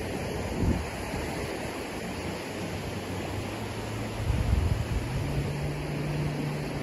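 Surf breaking on the shore and wind buffeting the microphone, with a couple of low thumps. A faint low steady hum comes in and steps up in pitch about five seconds in.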